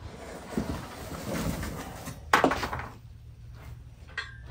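Cardboard box rustling and scraping as a steel tractor grapple is lifted out of it, with one sharp knock a little over two seconds in.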